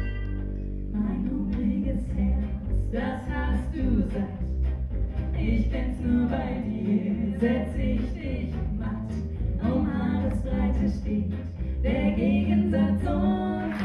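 Live acoustic band: several women singing together over an acoustic guitar and a double bass, the voices coming in about a second in.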